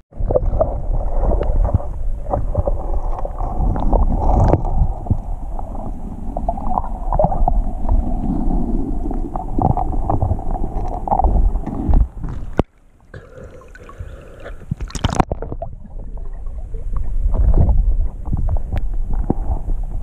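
Water heard from underwater through a submerged camera: a muffled rumbling and gurgling with scattered knocks as the camera and hand bump the river rocks. It drops out abruptly about two-thirds through, then comes back after a short sharp burst.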